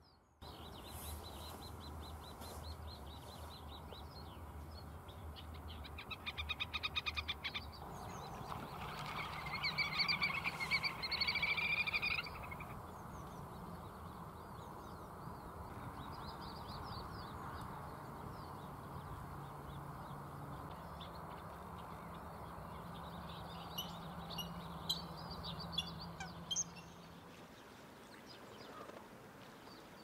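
Little grebe giving its fast whinnying trill, in two bursts about six and nine seconds in, the second lasting about three seconds, over a low steady hum. Scattered high bird chirps follow later on.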